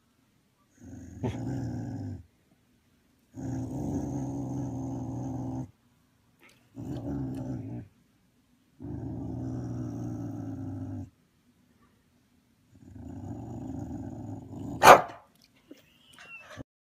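Dog growling in five long, low growls of one to two seconds each with short pauses between. Near the end there is a single sharp snap, the loudest sound.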